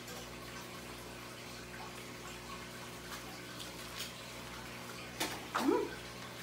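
Quiet kitchen room tone, a steady low electrical hum with hiss. A fork makes a few faint clicks on a foil-lined plate of fish. About five seconds in there is a sharper clink, then a short rising vocal sound.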